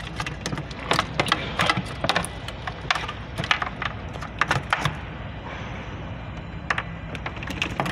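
A run of sharp, irregular clicks and ticks, several a second and bunched together, over a steady low machinery hum.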